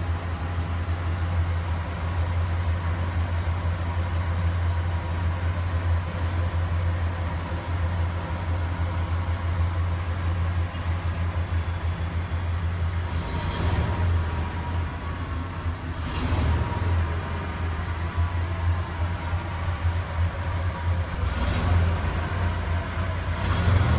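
Ford F-250 truck's engine running with a steady low hum, heard from underneath while the driveshaft turns. The driveshaft has been shaking badly since its three U-joints were replaced, which the owners suspect were installed the wrong way.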